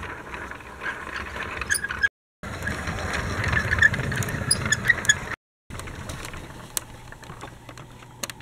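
Plastic toy tram (Dickie Toys City Liner) rolling along, its wheels and body giving a steady rattling clatter with small clicks. The sound cuts out completely twice for a fraction of a second.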